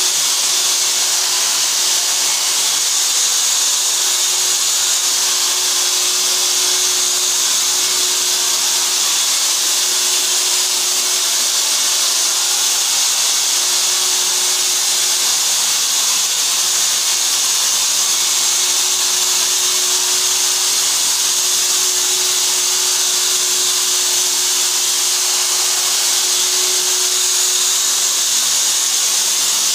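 Corded handheld electric ULV cold fogger running steadily, its motor and blower making a constant high hiss as it sprays a disinfectant mist.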